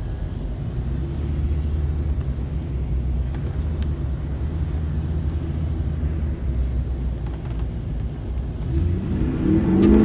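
Motor vehicle engine running with a steady low rumble, then rising in pitch as it revs near the end.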